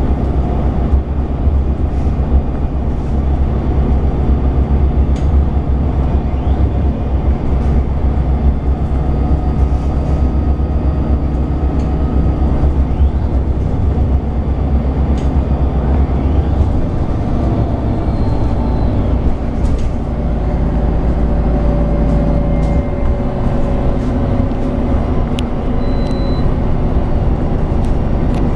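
MAN Lion's City 12C city bus (2024, NL 280) running on the road: steady diesel engine and drivetrain noise whose low note changes about halfway through and again a few seconds later, with occasional light clicks and rattles.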